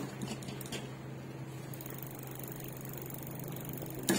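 Bicycle rear wheel spinning freely by hand, its hydraulic disc brake no longer rubbing the rotor, with a few faint clicks over a steady low hum.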